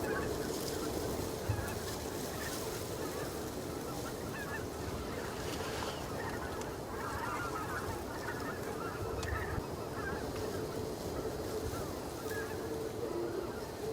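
A flock of greater white-fronted geese calling, with many short calls overlapping one another.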